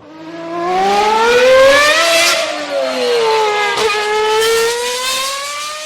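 A car engine revving: the pitch climbs for about two seconds, falls back about four seconds in, then rises slowly again.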